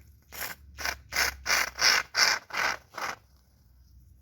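A can of Great Stuff expanding foam being worked in about eight short, evenly spaced noisy bursts, roughly three a second, stopping about three seconds in.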